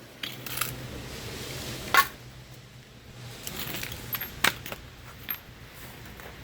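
Hand tools being handled: a few sharp metallic clicks and clinks, the loudest about two seconds in and a cluster of smaller ones later, over a faint low hum in the first half.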